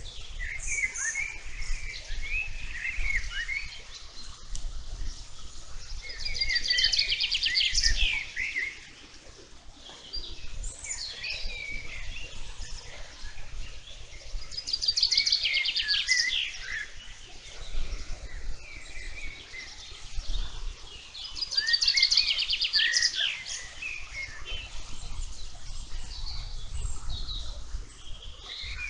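Meadow birds singing, with one bird repeating a song phrase built around a fast trill about every seven to eight seconds. Softer chirps from other birds fill the gaps, over faint low background noise.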